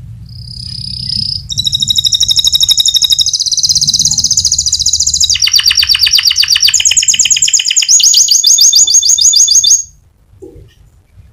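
White domestic canary singing a loud, continuous song made of fast trills. Each trill is a rapid run of one repeated note, and the song jumps to a new pitch every second or two before stopping abruptly near the end.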